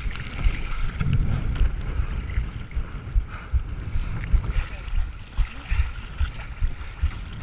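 Wind buffeting the windsurfer's boom-mounted camera microphone in an uneven low rumble, with water sloshing and splashing around the board and rig in shallow water.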